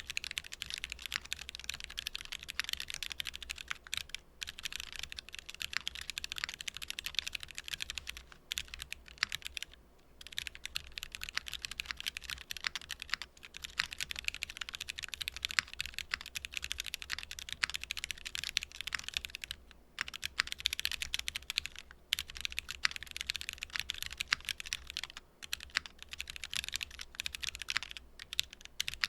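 Continuous fast typing on a gasket-mounted custom TKL mechanical keyboard with an aluminium plate and C3 Equalz Tangerine 67 g linear switches, with a few brief pauses between runs of keystrokes.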